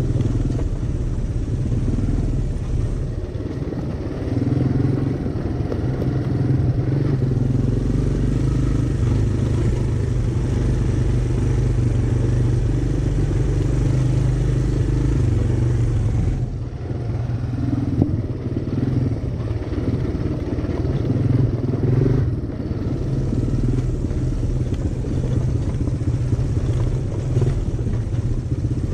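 Honda Fat Cat's single-cylinder four-stroke engine running steadily while riding, easing off briefly twice past the middle.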